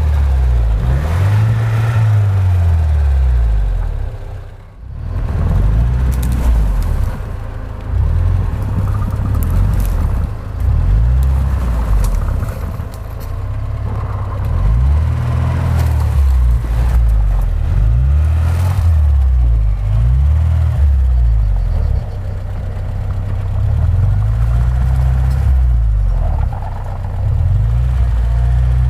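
A 4x4's engine revving up and down in repeated surges as it struggles to climb a steep snowy slope.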